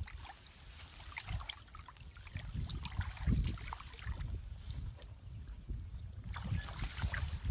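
Hands and legs moving through shallow muddy water: irregular small splashes, sloshing and squelches, with a low rumble of wind on the microphone.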